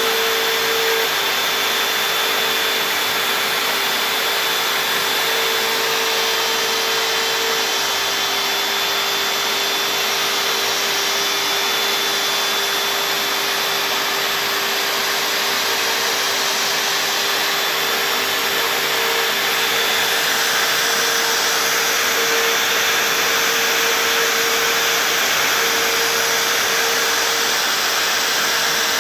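CNC router spindle running steadily as its bit carves lettering into a white-faced board, with dust extraction drawing through the hose at the spindle. The sound is an even hiss with a steady whining tone over it.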